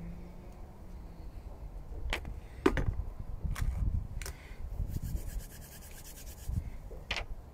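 Handling noise: rubbing and shuffling against a surface, broken by about five sharp clicks or knocks spread through.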